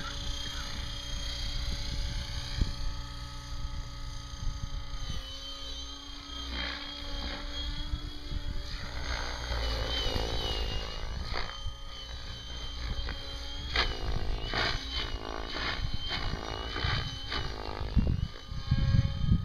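Logo 600 SE electric radio-controlled helicopter flying aerobatics: the whine of its rotor and motor holds steady, then sweeps up and down in pitch as it manoeuvres. A rough low rumble of wind on the microphone runs underneath, strongest near the end.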